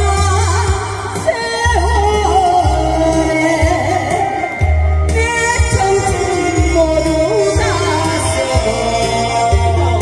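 A singer performing a song over instrumental accompaniment, with a steady, repeating bass line.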